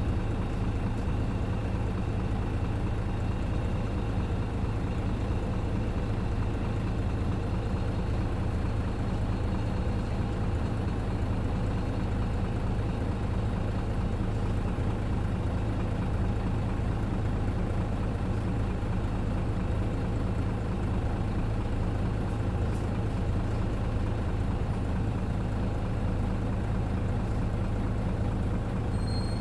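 The engine of a Hino KC-RU1JJAA 9.5 m large bus running steadily at an even pitch, with a low hum as the loudest part. A faint high whine comes in for a few seconds about a third of the way through. This bus is one that is known for unusual noises.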